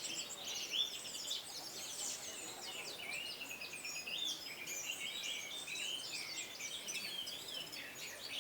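Orange-headed thrush (anis merah) singing a fast, continuous run of varied whistles and chirps with no pauses.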